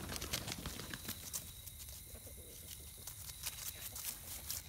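Light rustling and scattered crackles of footsteps through grass and dry fallen leaves.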